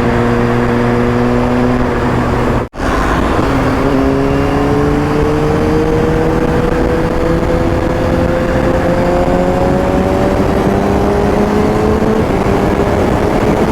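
Kawasaki ZX-6R inline-four engine pulling on the move, its pitch climbing slowly as the bike accelerates, with a gear change near the end. Heavy wind rush comes over a helmet microphone with a furry windscreen, the visor open at about 110 km/h. The sound cuts out for an instant nearly three seconds in.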